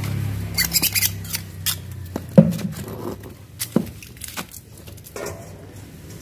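Metal clinks and knocks as a CV joint axle shaft is handled and set down into a steel bowl. A scattering of small clicks comes first, then one sharp knock about two and a half seconds in is the loudest, with a few lighter knocks after it.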